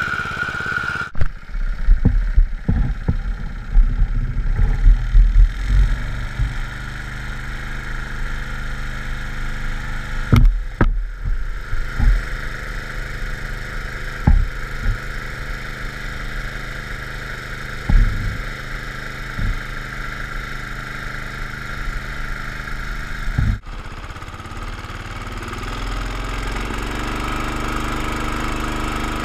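Briggs & Stratton lawn mower engine running steadily under load, driving the propeller of a homemade pontoon boat, with water churning in its wash. Heavy low thumps come in a cluster over the first few seconds and a few more times later. The sound changes abruptly about a second in, about ten seconds in and near the end.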